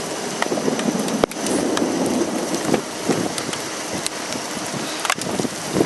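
Rain and wind noise, with scattered sharp taps of drops striking near the microphone.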